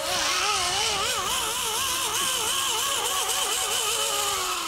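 Zip-line pulley running along a steel cable: a steady high whir over rushing noise, with a lower tone that wavers up and down about three times a second, fading near the end as the ride slows.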